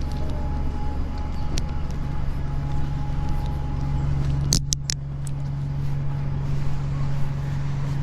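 A vehicle engine running steadily with a low, even hum, and a quick run of sharp clicks about halfway through.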